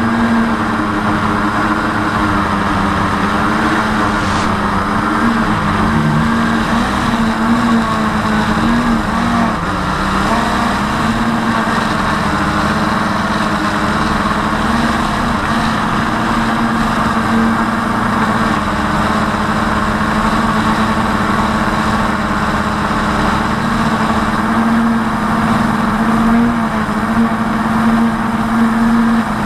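Blade 350 QX quadcopter's motors and propellers, heard from its onboard camera, humming steadily with the pitch wavering slightly as the throttle shifts. Wind rushes over the microphone underneath.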